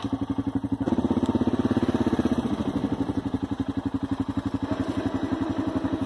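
Four-wheeler (ATV) engine idling with a steady, even putter, running a little louder for a second or two about a second in.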